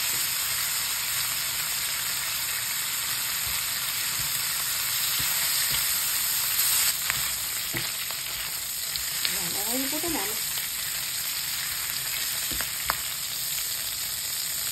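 Bacon-cut pork strips sizzling steadily in hot oil in a frying pan, with a few sharp clicks as tongs turn the pieces.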